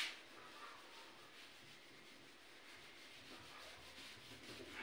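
Faint rubbing of a board eraser wiped in repeated strokes across a whiteboard, clearing marker writing.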